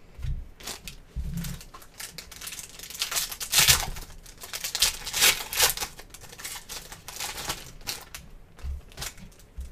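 Foil trading-card pack wrappers crinkling and tearing as packs are opened, with the cards rustling as they are handled, in irregular crackles that are loudest in the middle. A couple of dull knocks come in the first second or so.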